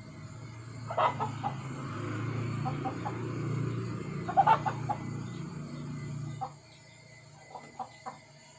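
A person blowing into a wood-fire hearth to fan the embers, a steady rushing breath that stops about six and a half seconds in. Chickens cluck over it, loudest about a second in and again about four and a half seconds in.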